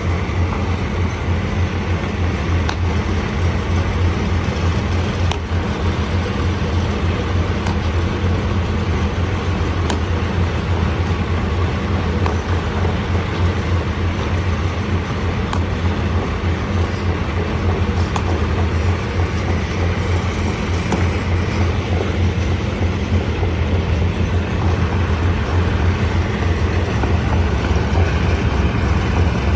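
Stone crusher running steadily, a continuous low mechanical drone with a constant grinding rumble and a few faint ticks.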